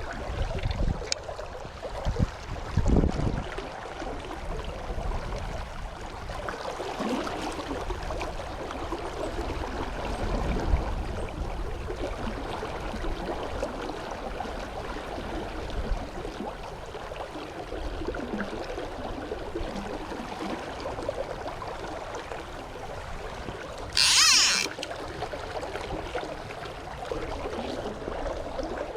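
River current running steadily, with wind buffeting the microphone in gusts, strongest in the first few seconds. Near the end, a short loud hiss.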